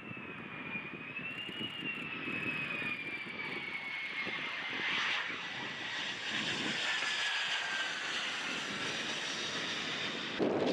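F-35 Lightning II fighter jet's engine, a high whine over a jet rush; the whine falls slowly in pitch while the sound grows louder.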